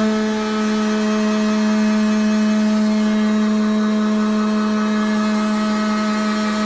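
A machine motor running with a steady, unchanging hum.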